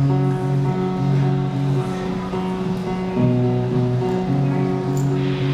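Acoustic guitar strumming chords in a song's instrumental intro, the chords changing every second or so.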